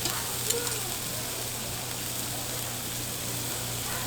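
Steady hiss of bánh xèo batter frying in a hot pan, over a steady low hum, with a couple of light clicks near the start.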